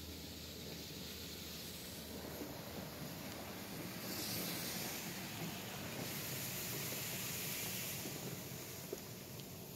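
Water and foam from a D&S IQ touch-free car wash spraying against the car's windows and body, heard from inside the cabin as a steady hiss. The spray grows louder and brighter about four seconds in and eases off near the end.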